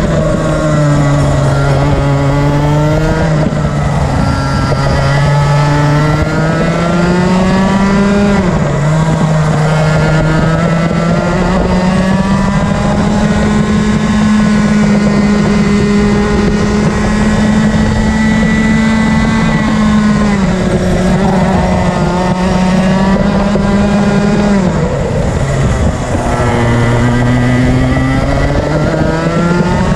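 Rotax Max Senior 125cc two-stroke single-cylinder kart engine at racing pace, heard from on board. Its pitch drops sharply under braking into each corner and climbs again as the kart accelerates out, held high and steady along a straight in the middle.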